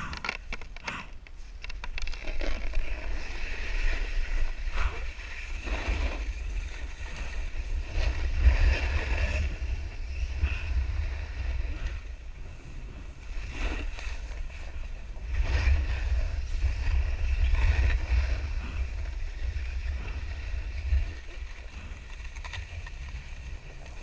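Wind rumbling on a GoPro's microphone while riding downhill, over the hiss and scrape of a snowboard sliding on packed snow. The rumble rises and falls in loudness.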